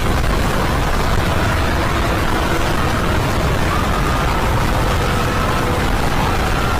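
Steady loud rumbling noise, strongest in the low end, with faint held tones higher up.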